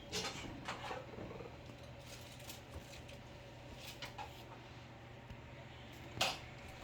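A steady low hum with scattered light clicks and knocks of kitchen handling, and one sharper knock about six seconds in.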